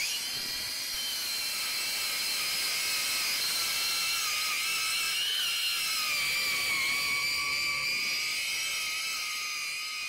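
Angle grinder running against a rusty front brake disc, cleaning off surface rust. It makes a steady high whine that wavers slightly in pitch.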